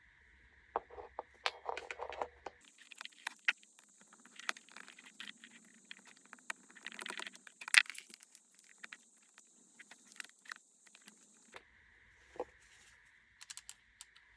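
Light clicking and rattling of small hard parts being handled. A faint, steady high-pitched whine starts suddenly a few seconds in and cuts off near the end.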